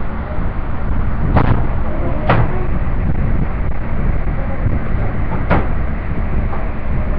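Steady low rumbling background noise with three sharp knocks: the first two about a second apart, the third some three seconds later.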